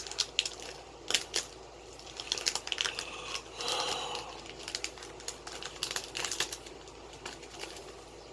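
A foil trading-card booster pack crinkling as it is handled and torn open, with a string of irregular crackles and a longer rustle near the middle.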